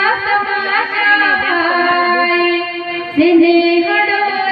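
A woman singing a welcome song into a microphone over a loudspeaker, holding long notes over a steady instrumental backing.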